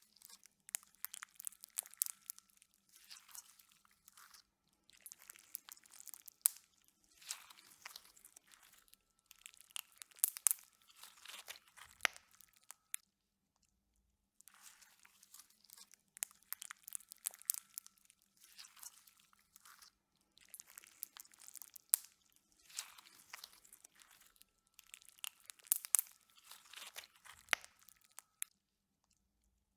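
Slime being worked and squished, making a dense run of small crackles and pops in clusters about a second long, with a short pause about halfway through.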